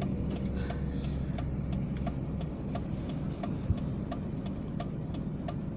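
Excavator's diesel engine running steadily with a low hum and a regular light ticking about three times a second.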